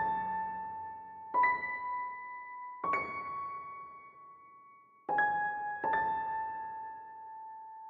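Ringtone melody on an LG-F7100 slide phone in an electric-piano voice: five slow single notes, each struck and ringing away, the last held for a few seconds.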